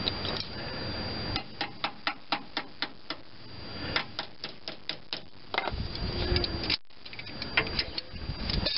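Light metallic clicking in two regular runs of about four clicks a second, then scattered clicks: a hand tool working a brake hose retaining clip onto its frame bracket.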